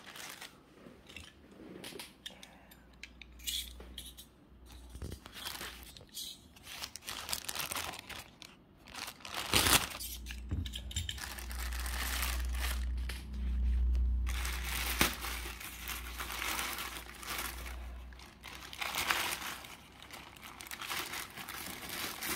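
Parcel packaging being unwrapped by hand: irregular crinkling and tearing with scattered sharp crackles. A low rumble runs through the middle stretch.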